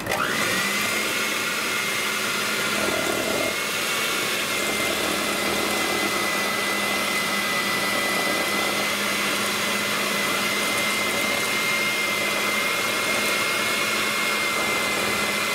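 Electric hand mixer switched on and beating cake batter in a stainless steel bowl: the motor comes up to speed at once and runs with a steady whine.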